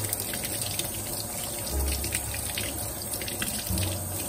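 Tap water running steadily into a stainless steel sink, splashing over hands as they rinse small tomatoes under the stream.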